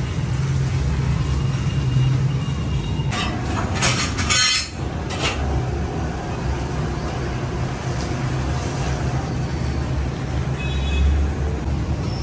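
Hot milk being poured from a height and splashing into steel pots, with a few sharp clanks of a steel pitcher about three to five seconds in, over a steady low rumble.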